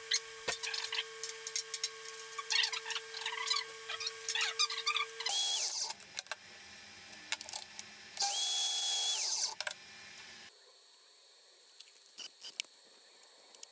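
Small handheld power tool at work: a steady motor hum with scratchy scraping for about five seconds, then two short high-pitched bursts as the motor spins up and stops, with light clicks and taps after.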